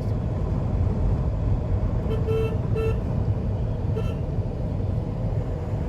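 A vehicle horn sounds two short toots about two seconds in, then a brief third toot a little later, over a steady low rumble of road traffic.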